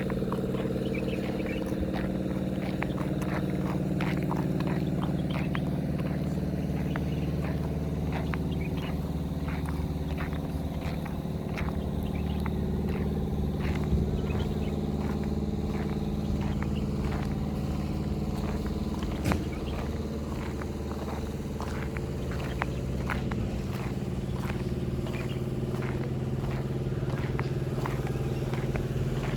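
Car engine hum and road noise from a moving vehicle, steady throughout, with frequent small irregular clicks and rattles.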